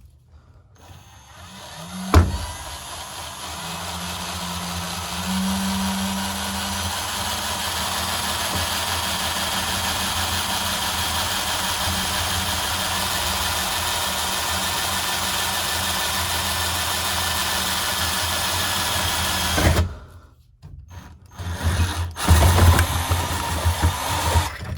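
Power drill boring a bolt hole through metal. It spins up over the first few seconds, runs steadily with a faint whine, then stops sharply about 20 seconds in. A few short, loud bursts of noise follow near the end.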